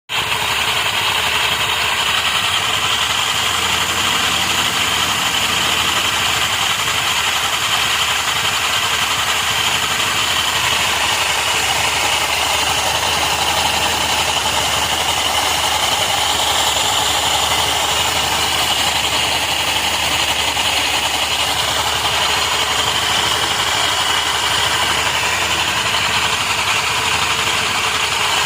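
Honda Activa 125 scooter's single-cylinder four-stroke engine idling steadily, with an abnormal noise that the owner places in the clutch.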